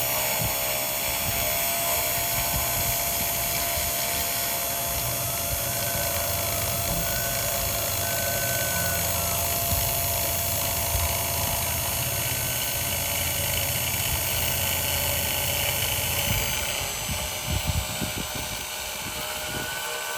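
3018 Pro desktop CNC router engraving a PCB: the spindle motor runs steadily while the stepper motors whine, the pitch rising and falling with each move. About 16 seconds in the low hum stops, followed by a few knocks.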